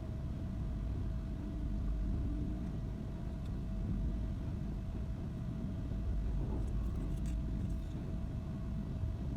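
Steady low rumble with a faint constant hum over it, and a few faint clicks about seven seconds in.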